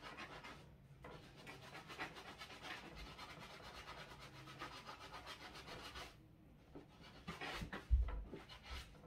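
Soft-bristle brush scrubbing the inside of a Yeezy Boost 350 sneaker's knit upper in quick, even strokes, stopping about six seconds in. Then comes some handling of the shoe and a single loud thump near the end.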